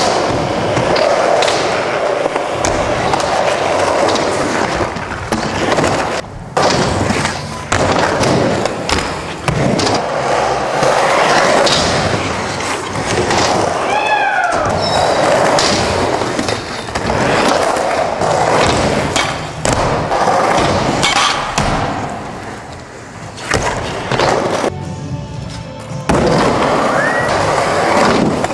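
Skateboard wheels rolling over the concrete floor and ramps of an indoor skatepark, with sharp knocks from the board. A music track plays along with it.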